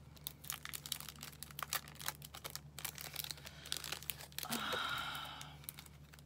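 Plastic packaging being handled and opened: a run of small crinkles and crackles, with a louder, longer rustle about four and a half seconds in.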